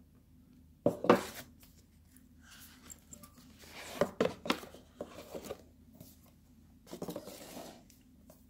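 Tissue paper rustling and cardboard scraping as a watch box is unwrapped and slid out of its cardboard outer box, in three short spells of handling noise.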